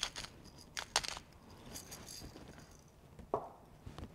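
Hand pepper mill grinding pepper into a steel bowl: faint crackling grinds and scattered sharp clicks, the loudest about a second in, with light clinks.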